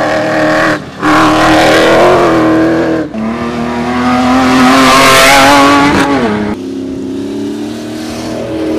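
Cross-country rally raid cars running hard on a special stage, heard in several short shots that change abruptly about one, three and six and a half seconds in. Midway one car comes close with a rising rush of tyre and gravel noise, and its engine pitch drops sharply as it goes by.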